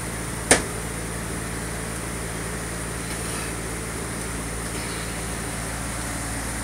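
A single sharp metallic click about half a second in, from parts being handled on an automatic transmission case, over a steady background machine hum.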